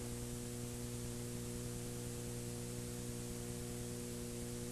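Steady electrical mains hum, several low tones held level, under constant hiss.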